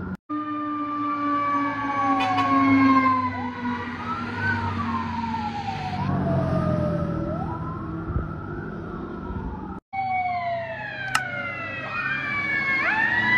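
Sirens of fire-brigade vehicles speeding past in convoy: several wailing sirens overlap, rising and falling in pitch, over the sound of the vehicles' engines. The sound drops out for a split second twice, near the start and about ten seconds in.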